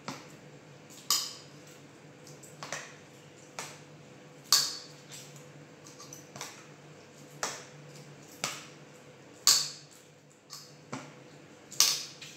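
Sharp clinks and scrapes against a stainless steel bowl as rice stuffing is scooped out by hand and pushed into an eggplant, about one a second at irregular spacing, a few of them louder. A low steady hum runs underneath.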